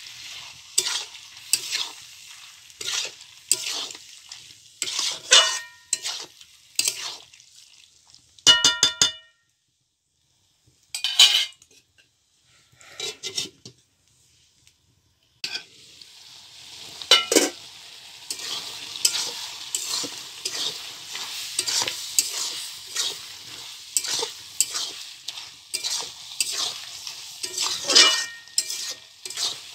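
Metal spatula scraping and clinking against a steel kadhai as chopped goat offal is stirred while it fries with a sizzle. About eight seconds in, a single ringing metal clang. Around the middle there are two short near-silent gaps, after which a steady sizzle returns with more scraping.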